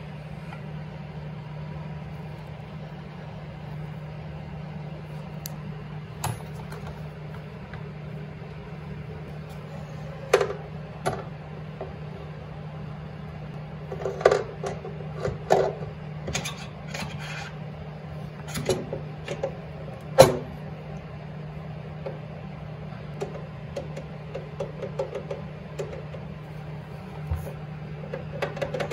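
Scattered metal clinks and knocks as a snowmobile jackshaft with its new bearing is worked by hand into its mount, the loudest knock about twenty seconds in, over a steady low hum.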